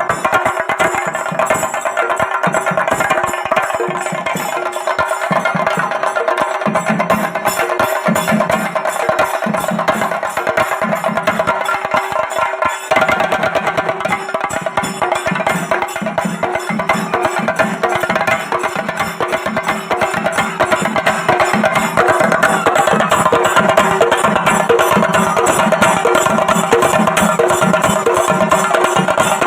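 Music with fast, continuous percussion strikes under sustained melodic tones, with a brief break about thirteen seconds in.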